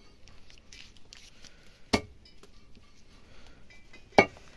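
Heavy cleaver chopping mutton on a wooden log stump: two sharp strikes about two seconds apart, each with a brief metallic ring.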